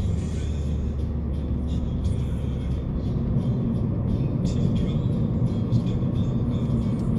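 Steady road and engine rumble inside a moving car, with music playing in the background.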